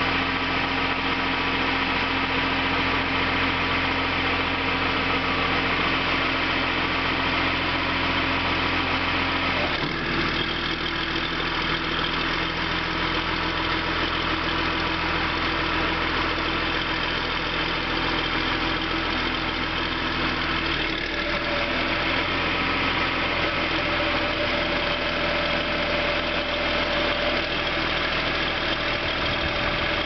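John Deere 710 backhoe loader's diesel engine idling steadily just after start-up. Its note changes about ten seconds in and again about twenty-one seconds in, while the front loader arms are worked and the bucket is raised.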